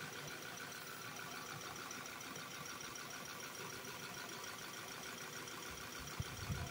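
Car engine idling with the A/C running, a steady hum with a faint high whine, heard beside the open engine bay. About six seconds in, low rumbling thumps start.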